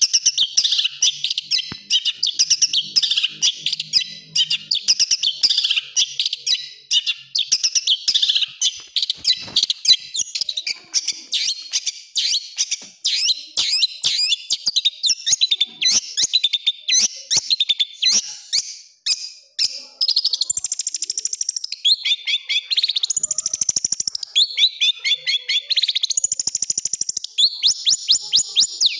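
Long-tailed shrike (cendet) singing a fast, dense string of chirps and harsh rapid-fire notes, the 'tembakan' that bird keepers prize. From about twenty seconds in, the song breaks into longer bursts of quick trills.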